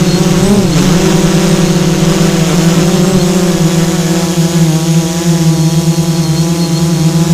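Electric motors of an FPV drone whining steadily; the pitch dips and recovers briefly about half a second in, as the throttle changes.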